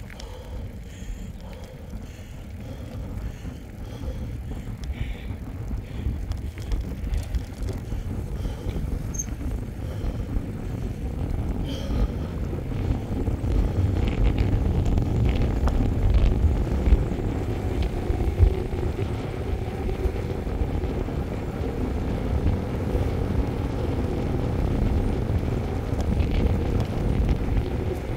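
Wind rushing over the microphone and knobby mountain-bike tyres rolling on asphalt during a ride, growing louder about halfway through. A few light rattles come through where it gets louder.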